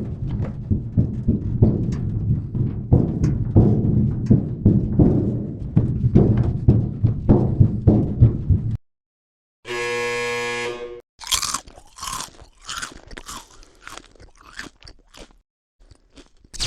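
A string of separate sound effects: about nine seconds of dense crunching, a pause, a buzzy tone lasting about a second and a half, then a run of short sharp bursts and a single hit near the end.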